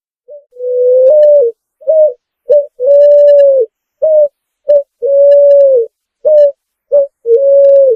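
Picazuro pigeon cooing: a repeated phrase of low, clear coos, each long drawn-out note followed by two short ones, about four long and six short notes in all.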